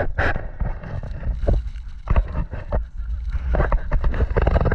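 Wind buffeting the microphone of a camera carried while skiing, with skis scraping and knocking on snow.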